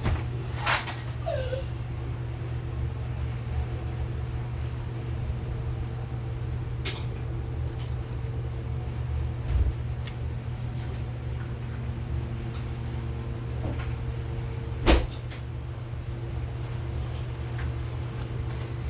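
Budgies in their cage making a few sharp clicks and taps, the loudest about fifteen seconds in, with a short falling chirp about a second in, over a steady low hum.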